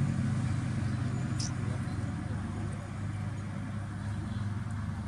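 A steady low engine-like drone runs throughout, with a short high chirp about a second and a half in.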